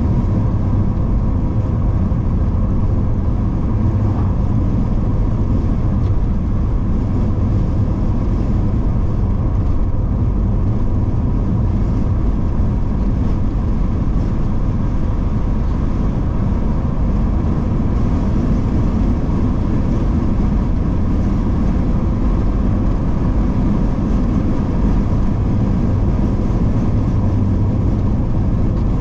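A car driving at a steady speed, heard from inside the car: an even, low rumble of engine and tyre noise on the road.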